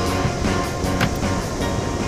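Background rock music, slowly getting quieter.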